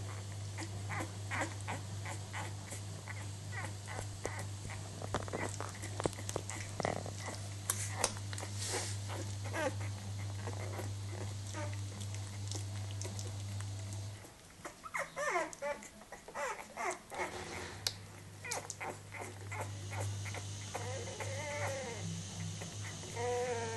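Newborn Old Danish Pointer puppies suckling at their mother, making small wet smacking clicks a few times a second. In the second half come high puppy squeaks and whimpers that rise and fall in pitch. A steady low hum runs underneath and drops out for several seconds midway.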